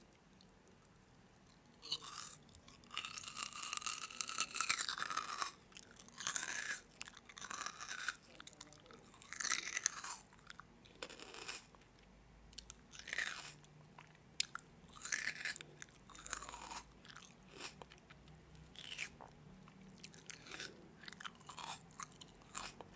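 Crunchy food being bitten and chewed close to the microphone: a string of crisp crunching bursts every second or two, the longest about three seconds in.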